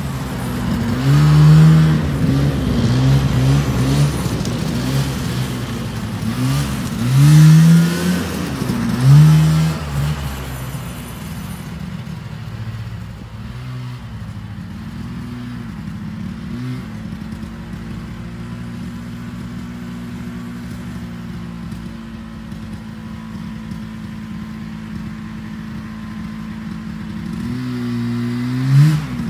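A 49-year-old John Deere snowmobile's two-stroke engine. It revs up and down over and over for the first ten seconds or so, then runs steadily at a lower pitch and more quietly, and revs again near the end.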